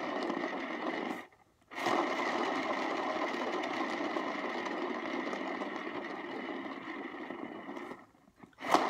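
Electric paint-pour spinner turntable whirring steadily as it spins a freshly poured ceramic tile, to fling the paint outward. It cuts out briefly about a second in and again near the end, starting back up with a click.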